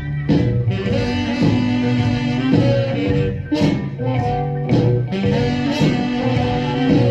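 1956 rock and roll instrumental played from a 78 rpm record: a horn section holding notes over a steady beat.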